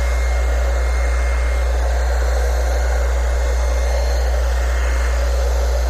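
Heat gun running steadily, a constant blowing hiss over a deep hum, used to warm vinyl wrap film.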